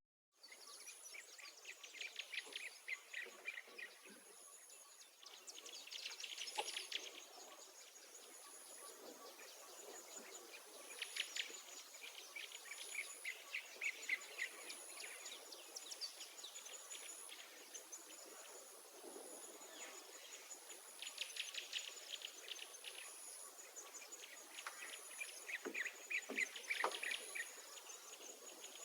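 Insects and birds: a faint, high-pitched insect buzz repeating in short pulses about every second and a half, with bursts of rapid chirping every few seconds.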